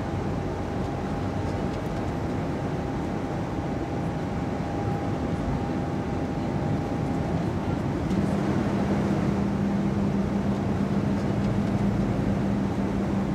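Steady running noise of a vehicle. A faint mid-pitched tone fades about seven seconds in, and a steady low hum joins about a second later, slightly louder.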